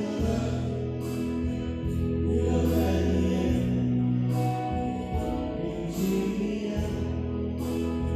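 Live gospel song played on electronic keyboards, with a bass line and a steady beat under voices singing.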